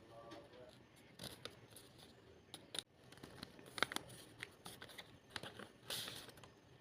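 Blind-box packaging being handled and opened: scattered crinkles, small clicks and short tearing rustles.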